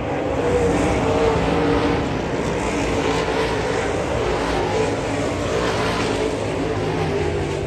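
Dirt late model race car engines running, a steady loud engine noise with a few held tones.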